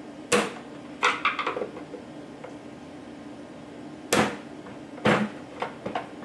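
Screwdriver knocking against the plastic turbidimeter housing as it punches out the knock-out covers on the corner mounting holes. There are about four sharp plastic knocks, with lighter clicks and taps between them.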